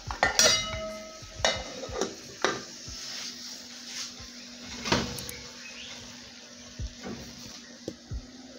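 Metal cookware and the steel grate of a gas stove clanking as they are handled: a loud ringing clank about half a second in, several more knocks over the next few seconds, then softer low knocks near the end.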